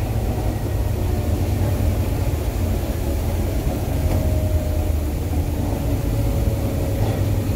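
Volvo B9TL double-decker bus under way, heard inside the passenger saloon: its six-cylinder diesel engine and the road give a steady low rumble. A faint whine comes in about halfway through and fades a couple of seconds later.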